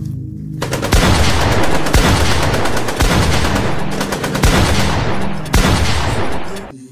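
Sustained burst of rapid automatic gunfire. The dense stream of shots starts about half a second in and cuts off just before the end.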